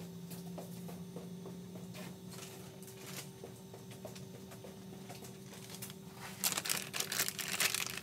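Packaging crinkling and rustling as it is handled, faint and scattered at first and much louder from about six seconds in, over a faint steady hum.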